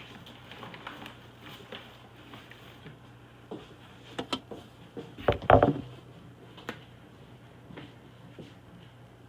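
Knocks and clatters of kitchen things being handled: a few sharp knocks about four seconds in and the loudest clatter a little past five seconds, with quieter handling noise around them.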